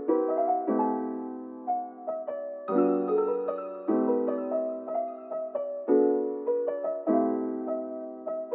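Background music played on piano: slow sustained chords with a light melody, a new chord struck every one to two seconds.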